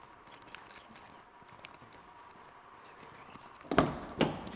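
Two loud knocks about half a second apart near the end, over quiet background noise with faint scattered clicks.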